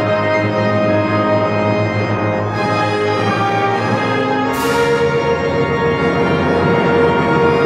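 Symphony orchestra, strings with brass, playing sustained, swelling chords, with a sudden bright crash about four and a half seconds in that rings on.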